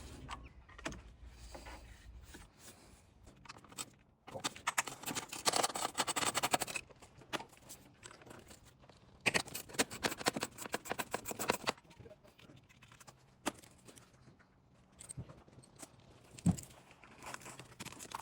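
Hand socket ratchet undoing the M6 bolts of a Lexus IS 250's thermostat housing, in two runs of rapid clicking a few seconds apart. Single metal clinks and knocks of tools come in between.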